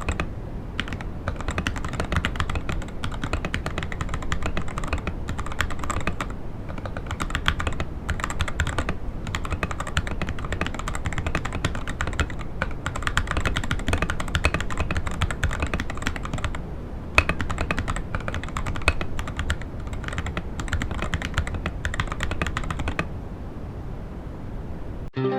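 Fast, continuous typing on an Akko ACR67 gasket-mounted mechanical keyboard with an acrylic case and FR4 plate, in stock form, with a few louder single key strokes mixed in. The typing stops a couple of seconds before the end.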